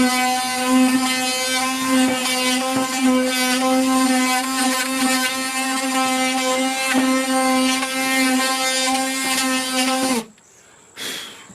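Battery-powered Ryobi oscillating multi-tool with a sanding pad running, a steady whine as it sands old paint off a surface. It cuts off suddenly about ten seconds in, followed by a brief scuff.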